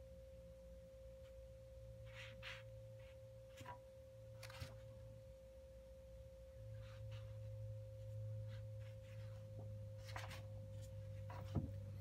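A faint steady high tone, like an electrical whine, runs under soft scratchy strokes of a watercolour brush on paper heard a few times. The tone cuts off near the end.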